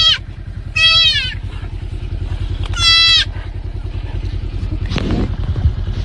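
A deer fawn bleating in distress as it is held: three high cries, each falling in pitch, near the start, about a second in and about three seconds in. An engine idles steadily underneath, with a brief rustle about five seconds in.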